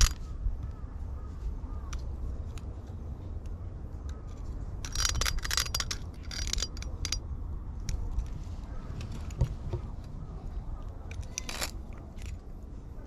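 Metal tines of a small rake-like cat toy on a pole scraping, clinking and rattling against asphalt and against a cat's claws and teeth as it bites and swats at it. The sound comes as scattered clicks with a few longer rattling bursts, about five, six and a half and eleven and a half seconds in, over a steady low rumble.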